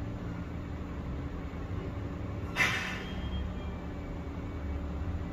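A deer fawn gives a single short, high, raspy bleat about two and a half seconds in, crying for its mother. Underneath runs a steady low engine hum.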